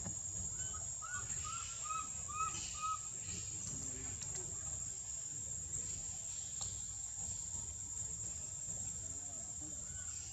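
An animal gives a quick run of about six short calls, each rising and falling in pitch, in the first three seconds, over a steady high-pitched drone and a low rumble.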